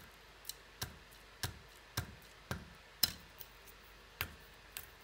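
Irregular sharp clicks and taps, about two a second, as small CubicFun 3D puzzle pieces are handled and pressed together.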